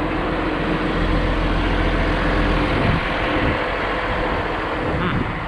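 John Deere 710D backhoe's diesel engine idling steadily, a low rumble with a constant hum.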